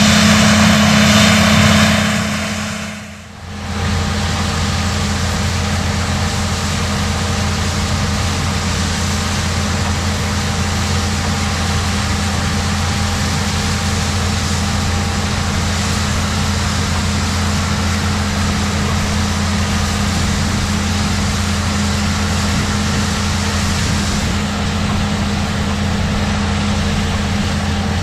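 Tractor engine and pull-type bean combine running steadily in the field, a continuous machine drone with a low hum. About three seconds in the sound dips out briefly, then carries on steady and a little quieter.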